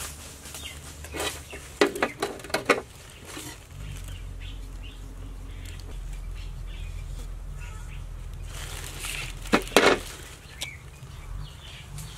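Sharp metallic clinks of knives being set down and handled on a steel plate: a quick cluster about two seconds in and another near ten seconds. Between them, light rustling of dry leaves over a steady low rumble.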